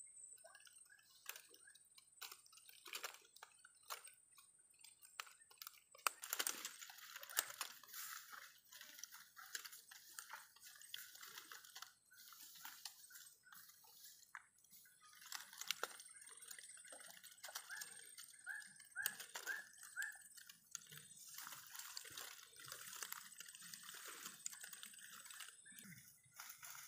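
Faint, irregular sloshing and dripping of shallow swamp water, with scattered small splashes and clicks as it is stirred.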